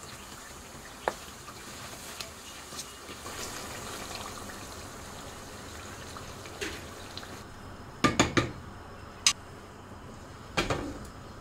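Chicken karahi simmering in a pot with water being added, a steady liquid bubbling and sizzling, with light clicks of a wooden spoon against the pot. About eight seconds in come a quick run of sharp knocks of cookware, one more a second later, and another few near the end.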